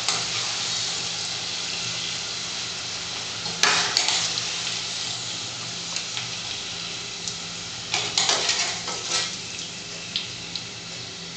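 Potato chips deep-frying in a saucepan of hot oil with a steady sizzle. About four seconds in, and again around eight to nine seconds in, a metal skimmer clinks and clatters as fries are lifted out.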